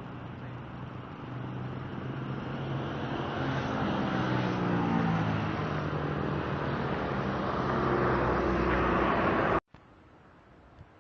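A motor vehicle engine running and speeding up, its pitch rising, over road noise. The sound cuts off abruptly near the end, leaving a quiet background.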